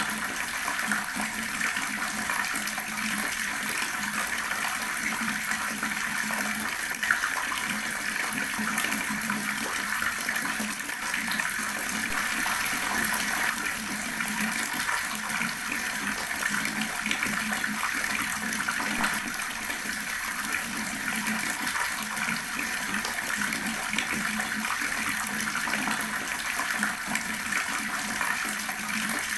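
Water running steadily from a tap and splashing below it, a constant rushing splatter.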